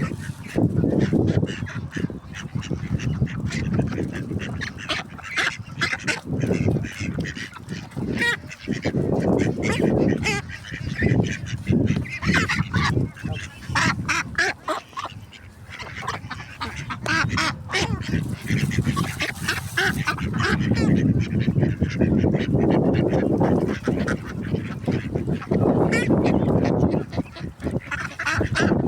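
A group of ducks calling, many calls overlapping almost without pause.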